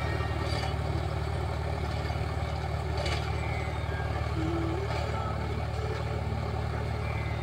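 Sonalika tractor's diesel engine running steadily under load, driving a Shaktiman rotavator as it tills the soil: a steady low drone.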